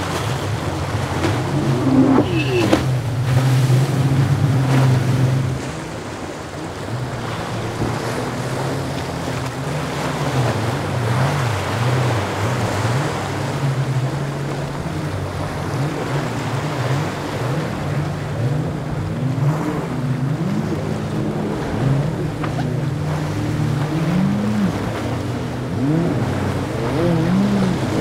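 Boat engines running as the boats cross rough inlet waves, their pitch rising and falling, over the wash and splash of the sea. A personal watercraft's engine is loudest during roughly the first five seconds, then the level drops.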